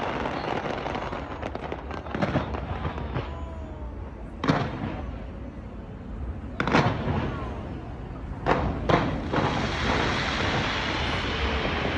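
Aerial fireworks bursting: about five sharp booms spaced a second or two apart, over a steady background rumble.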